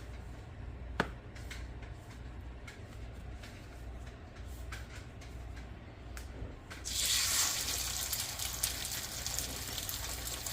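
Frying pan of hot bacon grease: a faint sizzle with scattered light clicks, one sharper click about a second in. About seven seconds in, the sizzling suddenly grows loud as food goes into the fat, and it carries on steadily.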